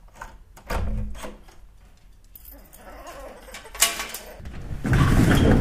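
Door knob turning and a door being opened, with clicks and knocks, then keys jangling in a steel security gate's lock and a sharp click of the lock about four seconds in. A louder stretch of rattling noise follows near the end as the gate is handled.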